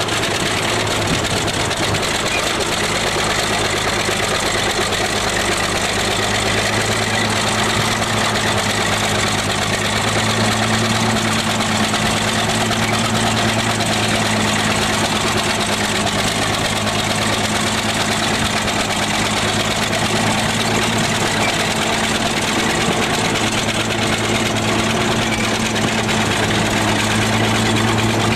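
Truck engine running steadily under a constant hiss, its low note stepping up slightly about ten seconds in.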